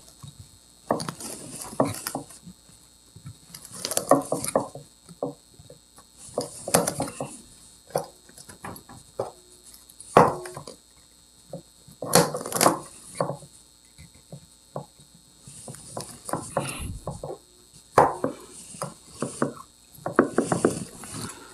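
Irregular clicks, scrapes and light clinks of pliers and fingers working at a glazed ceramic bonsai pot standing in a stainless steel basin, as the tree is fixed in place in its pot.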